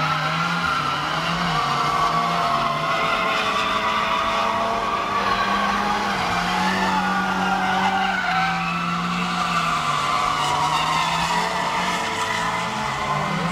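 Car engines held at high revs, rising and falling, while the tyres spin and squeal on asphalt during burnouts and donuts.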